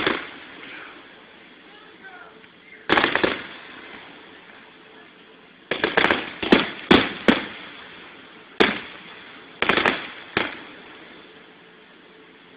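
Fireworks bursting overhead: sharp bangs that die away quickly, coming in irregular groups. There is one bang at the start and one about three seconds in, then a quick run of about five around six to seven seconds in. A single bang follows near nine seconds, then two more around ten seconds.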